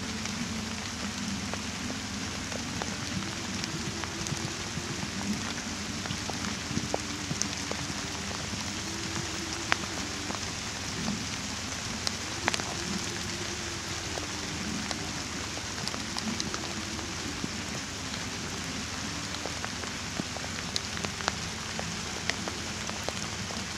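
Light rain falling steadily, an even hiss with scattered sharp ticks of individual drops.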